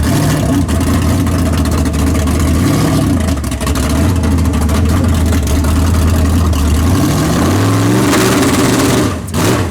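Tunnel-rammed drag car engine running at a steady, loud, low note, then revving up with a rising pitch about seven and a half seconds in before dropping away sharply near the end.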